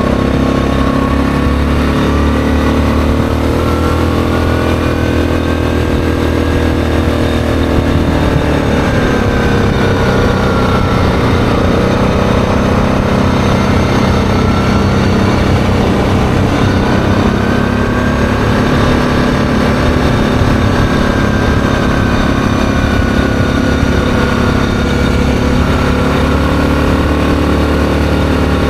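ATV engine running while riding along a gravel road, its note sagging about a third of the way in and climbing back later as the throttle changes.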